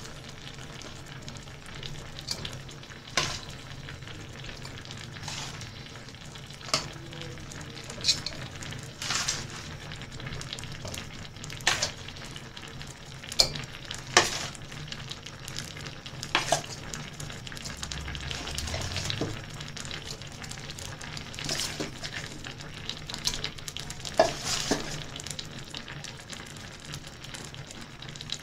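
Marinated chicken pieces being set one by one onto a perforated stainless steel steamer colander, giving short wet slaps and metal clinks every second or two, over a steady low hum.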